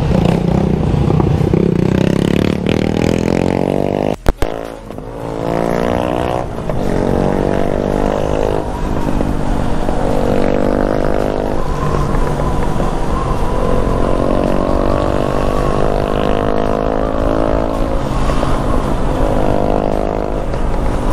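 Yamaha XJ6 inline-four motorcycle engine heard from the rider's seat, pulling away and accelerating through the gears, its revs climbing again and again. There is a sharp knock about four seconds in.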